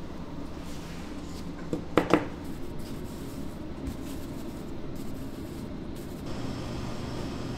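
Steady machine hum, with two quick knocks about two seconds in; a second, deeper hum joins about six seconds in.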